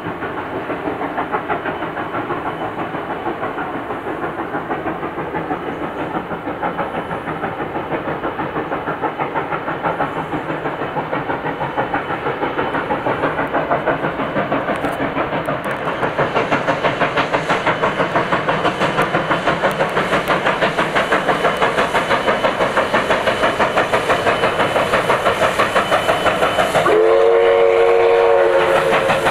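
NSWGR 59 class 2-8-2 steam locomotive 5917 working steadily with rapid, even exhaust beats, growing louder as it approaches. Near the end it sounds its steam whistle, one chord of several tones held for about two seconds.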